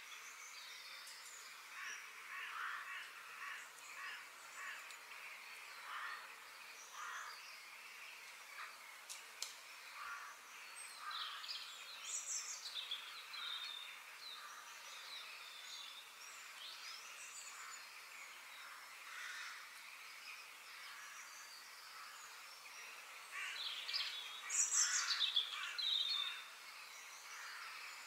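Birds chirping and calling over a light background hiss, many short calls throughout, with a louder flurry of calls near the end.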